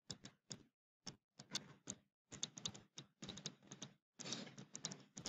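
Faint stylus tapping and scratching on a tablet screen while handwriting, in a quick irregular run of short clicks and brief scrapes.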